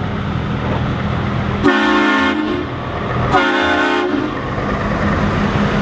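Heavy Scania cement mixer truck with its diesel engine running, and two blasts of a truck air horn, each under a second long, the second about a second and a half after the first.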